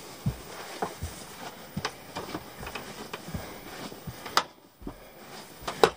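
Footsteps along the aisle of an airliner's passenger cabin: soft, irregular thuds with faint clicks, and two sharp clicks in the second half.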